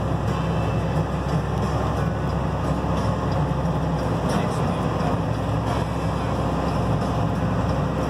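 Steady engine drone of a farm tractor under way, heard from inside its closed cab.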